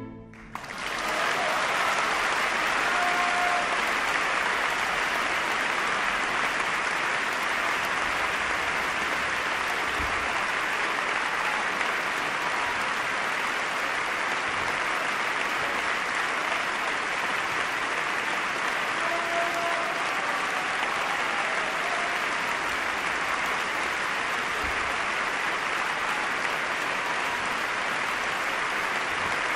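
Audience applause, swelling up within the first second as the music stops and then holding steady.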